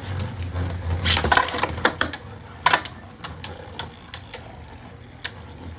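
Beyblade Burst spinning tops clashing in a plastic stadium: a string of sharp, irregular clacks as they strike each other, with a low hum early on as they spin.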